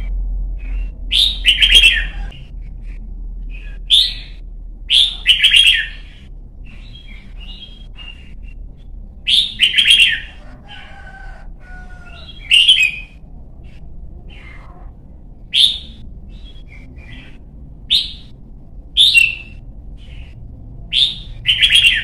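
Red-whiskered bulbul singing: short, loud, chirping phrases, about ten of them, each under a second long and spaced one to three seconds apart.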